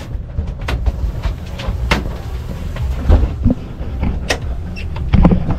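Steady low rumble of the boat's engines running, with scattered sharp knocks and clatter of gear being handled on the deck, about one a second.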